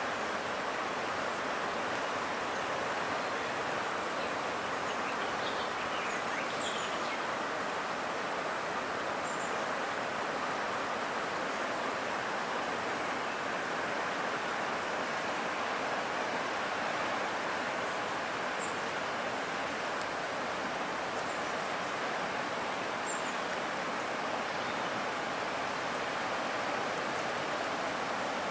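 Steady rushing noise of the flooded Vltava river's fast brown water, with a few faint high chirps now and then.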